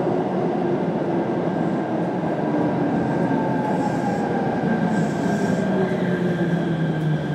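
Kintetsu 7000 series electric train with Mitsubishi IGBT-VVVF traction drive running, its inverter and motor tones gliding slowly down in pitch as the train slows for a station stop, over steady wheel and rail noise.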